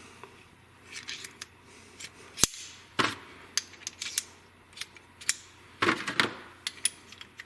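Metal oil pump gears and housings being handled and fitted together by hand: a scatter of light clicks and knocks, with one sharper click about two and a half seconds in and a cluster of knocks near the end.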